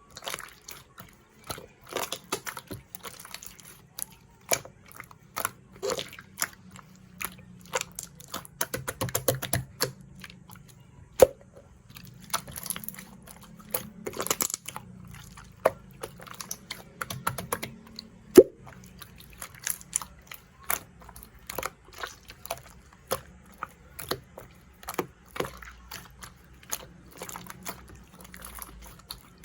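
Slime being squeezed and poked by hand: a steady run of irregular sticky clicks and crackles, with two louder pops, about eleven and eighteen seconds in.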